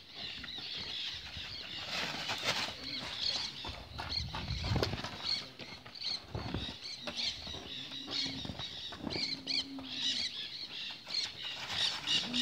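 Many small birds chirping and twittering, with bursts of low rumbling wind noise on the microphone now and then.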